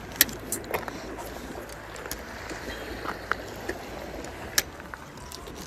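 Small waves washing against the rocks and wind on the microphone, with a few sharp, irregular clicks and knocks from the fishing rod and spinning reel being handled.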